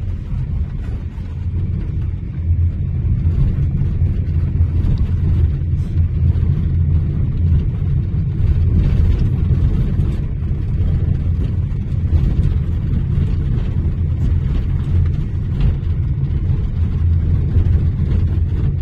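Strong wind ahead of a sandstorm buffeting the phone's microphone: a loud, steady low rumble that swells a little after about a second.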